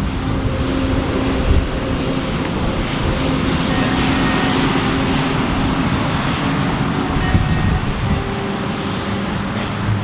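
Steady low rumble of road traffic, with a few faint held tones above it.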